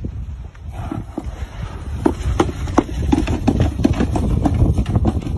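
A run of irregular knocks or taps over a low rumble, growing denser from about two seconds in.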